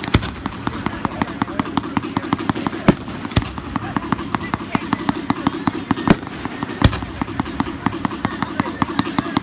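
Fireworks display: a rapid, unbroken stream of pops and crackles as many shells launch and burst, with a few louder bangs scattered among them.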